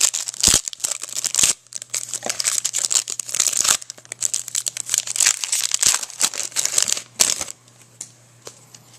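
Wrapper of a 2005 Topps Finest football card pack being torn open and crinkled in the hands: a dense run of crackling that stops about seven and a half seconds in.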